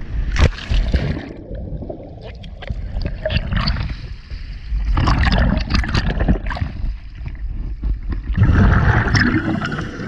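Water sloshing and gurgling against a camera's waterproof housing as a scuba diver goes in from a boat and sinks below the surface, with a sharp knock about half a second in. From about eight seconds in, a denser rush of scuba exhaust bubbles takes over.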